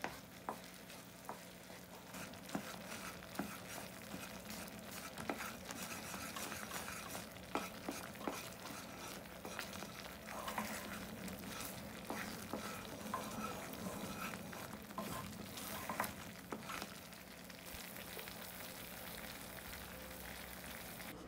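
Wooden spoon stirring thick cheese sauce in a small metal saucepan, with irregular scrapes and taps against the pan over a steady sizzle. Near the end the stirring stops and the thickened sauce bubbles and sizzles on its own.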